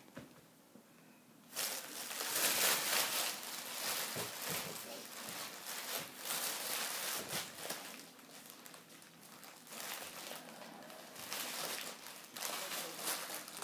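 Plastic carrier bag crinkling and rustling in irregular bursts as a Staffordshire bull terrier puppy chews and tugs at it, starting about a second and a half in.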